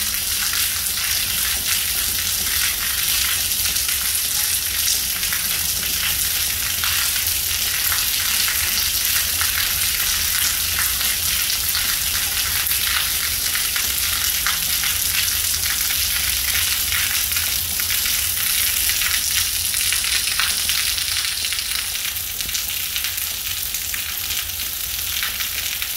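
Steady rain falling, a dense crackling hiss, with water running off the edge of a barrel tile roof in streams; a steady low rumble sits underneath.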